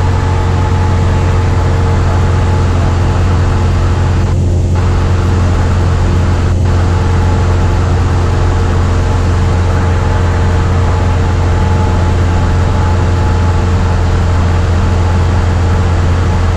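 Single-engine Cessna's piston engine and propeller droning steadily in cruise flight, heard inside the cabin as a loud, constant low hum with a few steady tones above it.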